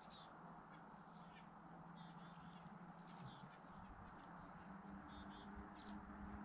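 Small songbirds chirping faintly, with short high calls scattered throughout, over a faint steady low hum.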